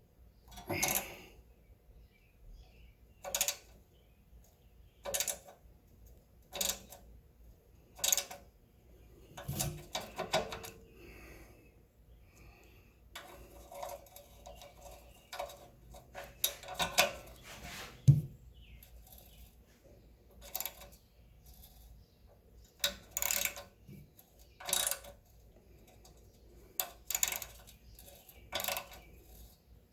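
Sharp metallic clicks and clinks, one every second or two, some coming in short clusters: hand tools and metal parts knocking together while a small engine-driven water pump is taken apart.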